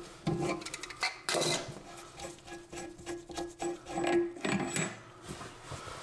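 Rubbing and scraping with a few handling knocks as a gloved hand unscrews the supply line's coupling nut from the toilet tank's fill valve shank.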